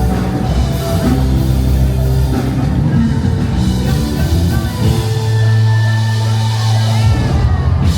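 Loud music with long, held low bass notes.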